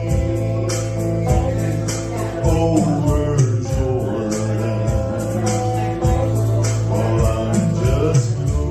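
Live band music with sustained bass notes, shifting guitar and vocal lines, and a regular drum beat.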